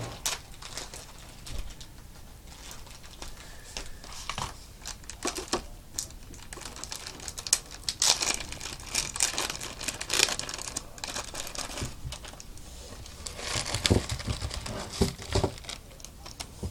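Tightly packed fishing-lure packaging being crinkled, pulled and torn open by hand: irregular rustling and crackling with sharp clicks, in louder flurries about halfway through and again near the end.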